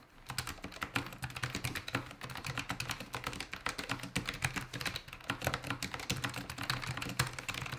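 Logitech G915 low-profile mechanical keyboard with GL Tactile switches being typed on quickly and continuously: a fast, unbroken run of key clicks.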